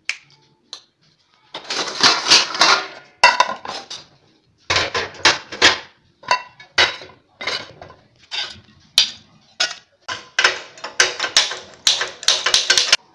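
Steel pots, pans and plates being struck and knocked together. An irregular run of metallic clangs with some ringing begins about a second and a half in.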